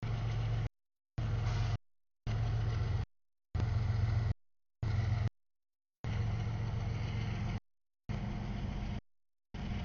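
Freight cars of a mixed freight train rolling past, a steady low rumble of wheels on rail. The sound keeps cutting out: it comes in about eight short pieces with dead-silent gaps between them.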